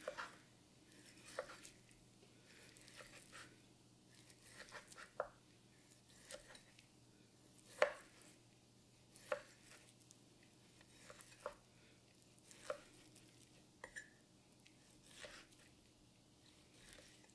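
A single-bevel honesuki boning knife cuts between the bones of a rack of ribs. It makes about a dozen short knocks, spaced a second or two apart, as the edge comes through onto a wooden cutting board.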